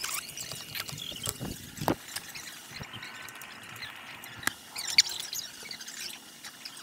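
Scattered light clicks and taps from hands working brake-bleeding gear: the bleeder screw, fittings and hoses being handled during a pressure bleed, with the sharpest click about five seconds in.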